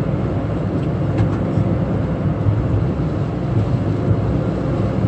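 Car driving on a wet road in the rain: a steady low engine and road rumble with a fainter hiss from the tyres on wet tarmac.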